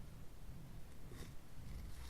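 Faint handling noise from a plastic mechanical pencil over a low room rumble, with a soft scrape about a second in as the lead-grade indicator is turned.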